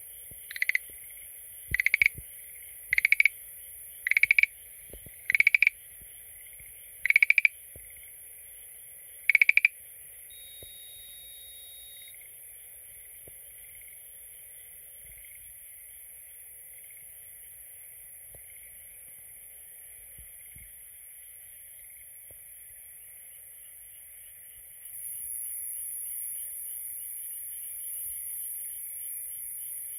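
Schlegel's green tree frog calling: about eight short, loud rattling notes, roughly one a second, over the first ten seconds, then it stops. A faint steady chorus carries on behind it.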